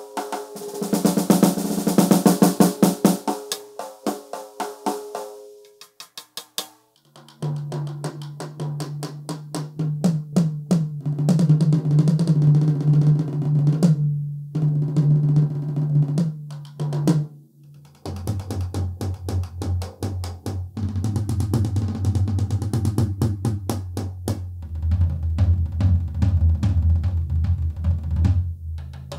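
Donner Backbeat electronic drum kit's sound module playing drum sounds as its pads are struck. It opens with fast snare strokes and rolls and pauses briefly. Quick runs on the rack toms follow, ringing at one steady pitch, and about two-thirds of the way through the strokes move to the lower-pitched floor tom.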